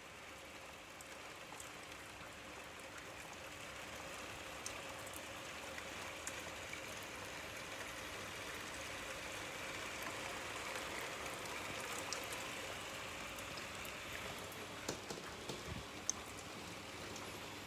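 Steady rain falling, an even hiss that swells a little toward the middle, with scattered sharp ticks of drops landing close by, a few louder ones near the end.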